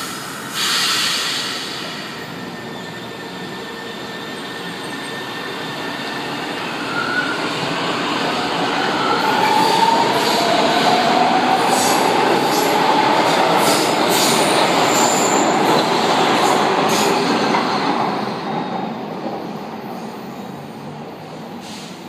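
São Paulo Metro train pulling out of the station, with a short hiss about half a second in. Its motors then whine and rise in pitch as it speeds up, with wheel squeal and running noise growing louder. The sound fades off near the end.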